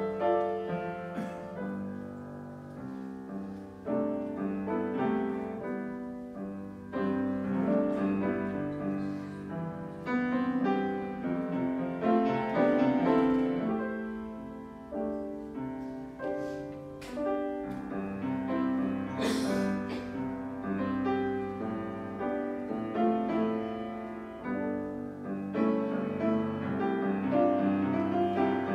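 Grand piano played solo, a piece of changing chords and melody notes.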